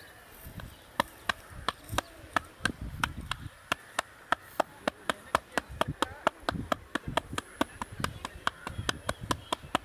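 Percussive head massage: hands striking the head in quick, even chopping slaps, about three to four a second.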